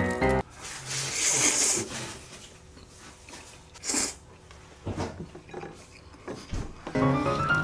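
A person slurping fire noodles off chopsticks in hissing sucking rushes, the loudest about four seconds in, with a few short clicks between them. Background music stops just after the start and comes back near the end.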